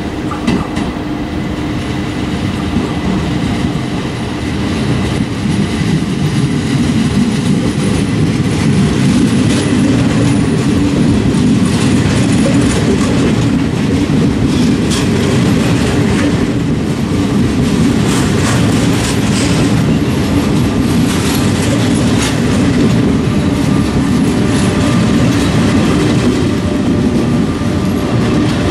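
Passenger train of Trenord coaches rolling past close by along the platform: a steady rumble of wheels with repeated clattering over rail joints, growing louder a few seconds in and then holding.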